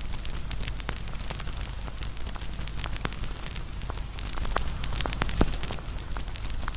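Fire crackling: a steady low rumble with frequent sharp pops and snaps, one louder pop about five seconds in.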